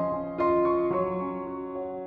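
Background piano music: soft notes struck about half a second and about a second in, then left to ring and fade.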